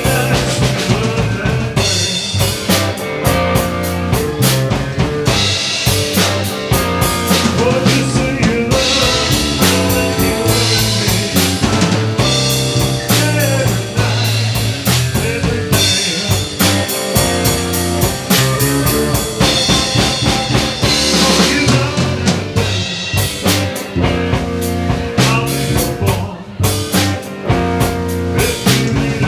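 Live blues band playing: a drum kit with electric guitars over a steady beat.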